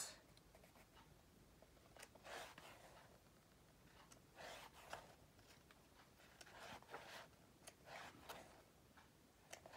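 Faint rustling of paper as pages of a small guidebook are handled and turned: about five soft swishes a second or two apart.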